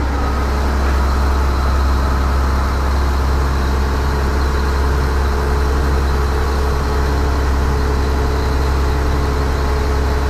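Tour boat's inboard diesel engine running steadily under way, a loud, even low hum with no change in pitch.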